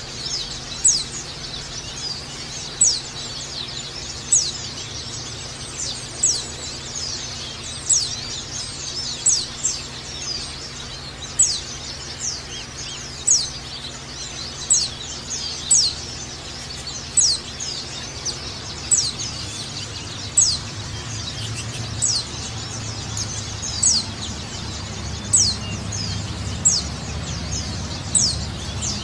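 White-eye (pleci) calling, giving short, thin, high notes that sweep down in pitch, about one a second, over a fainter high twittering and a steady low hum.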